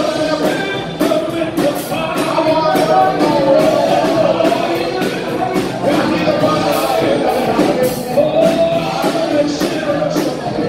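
Live church worship band playing: voices singing over electric guitar, keyboard and a drum kit keeping a steady beat.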